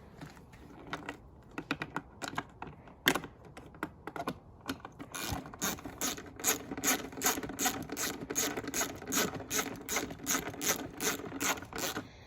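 Hand ratchet with an 8 mm socket clicking as it tightens number-plate bolts: a few scattered clicks and one louder click at first, then steady ratcheting of about three to four clicks a second through the second half.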